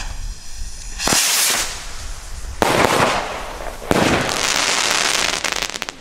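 Firework rockets going off: three loud bangs about a second and a half apart, each trailing off in a hissing rumble. The last one is longest and ends in a rapid crackle.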